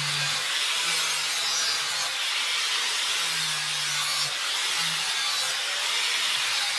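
Handheld angle grinder grinding a spring-steel knife blade: a steady, even rasping hiss of the disc on the steel, with a low hum that comes and goes.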